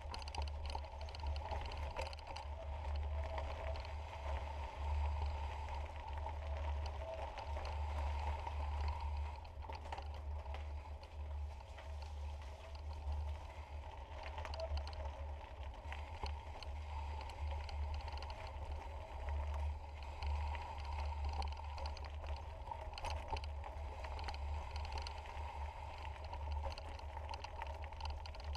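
Mountain bike rolling along a gravel trail, with scattered small clicks and rattles. Wind buffets the camera microphone throughout in a fluttering low rumble.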